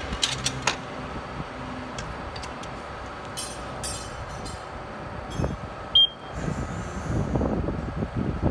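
Automatic transmission fluid changer machine: a few clicks, a short hiss, then one short high electronic beep about six seconds in, followed by louder rough mechanical noise over a steady machine hum.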